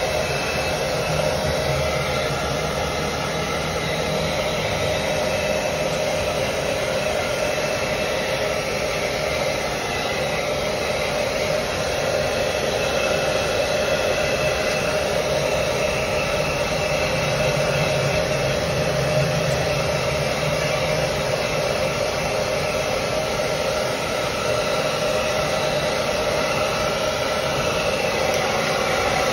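Handheld hair dryer running steadily on a wet cat's fur: an even rush of air with a steady motor whine.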